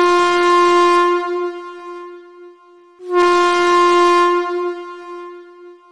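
Train whistle sound effect: two long, steady blasts on one pitch. The second starts about three seconds in, and each fades away.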